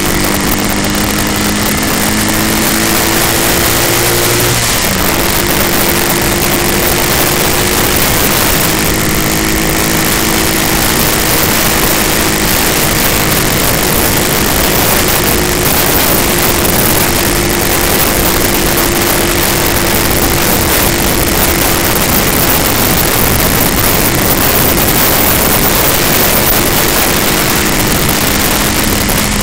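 Wind rushing loudly over the microphone of a moving motorcycle, with its engine running steadily underneath. The engine note shifts a few seconds in.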